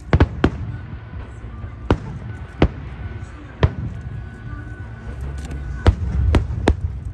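Aerial fireworks shells bursting: about eight sharp bangs at uneven intervals over a steady low rumble.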